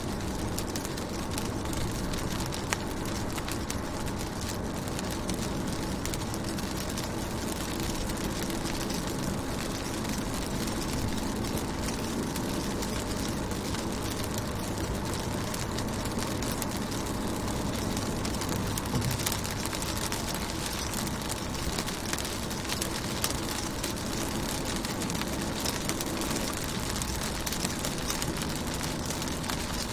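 Steady rain falling on a car's window and body: a constant hiss of rain with many small drop ticks scattered through it and a low steady rumble underneath.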